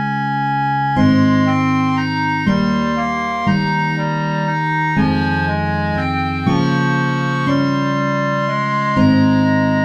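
Background music: sustained organ-like keyboard chords, a new chord every second or so.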